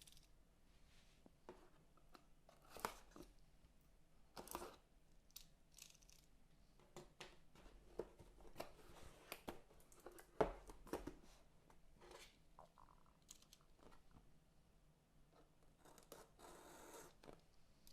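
Cardboard packaging of a keyboard being opened and handled: faint tearing and rustling with scattered clicks and taps, and one sharper knock about halfway through.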